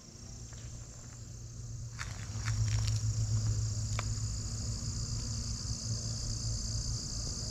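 Loud chorus of insects, a steady high-pitched buzz, with a distant lawnmower's low hum underneath and a few light ticks between two and four seconds in.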